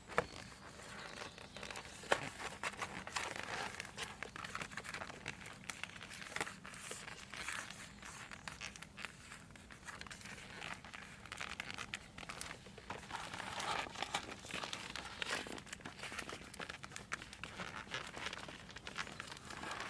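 Faint, irregular rustling and crinkling with occasional light clicks as a cut sheet of foam sound-insulation material is handled and test-fitted against an engine cover.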